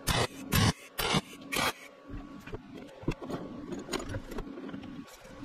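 Stick welder tacking galvanized steel chain links: four short crackling arc bursts about half a second apart, then small metallic clinks as the chain links are handled.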